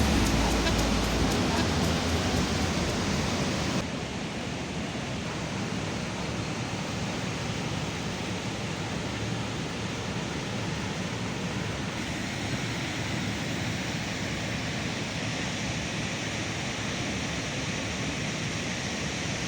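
Waterfall rushing steadily: the Nabuyole Falls on the Nzoia River, with the tone shifting slightly about four seconds in.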